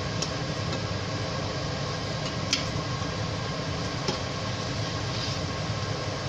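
A metal slotted spatula clinking a few times against a stainless steel pan while turning fish pieces in curry, the sharpest clink about two and a half seconds in, over a steady low machine hum.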